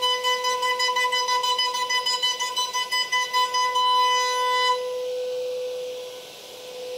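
Router spindle with an end mill cutting into a wooden moulding: a high, fluttering whine. About two-thirds of the way through the cutting stops, leaving a plainer steady whine from the spinning spindle.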